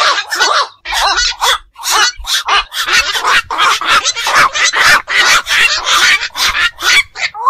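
Black-crowned night herons giving a steady run of short, harsh croaking calls, about three a second.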